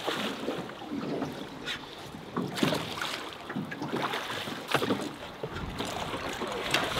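Water lapping and splashing against the metal hull of an oared drift boat, with scattered knocks. From about five and a half seconds in, wind gusts on the microphone.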